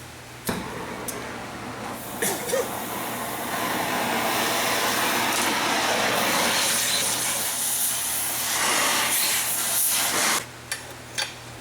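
Oxy-acetylene torch flame hissing steadily while heating an engine mount to free a seized bolt. It starts after a click, grows louder a few seconds in, and cuts off suddenly near the end.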